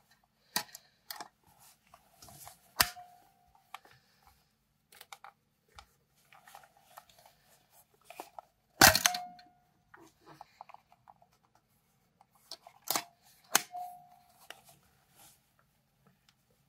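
Fuji DL 95 compact film camera being handled and turned over: scattered clicks, knocks and rubbing, the loudest a knock about nine seconds in, a few of them followed by a brief ringing tone.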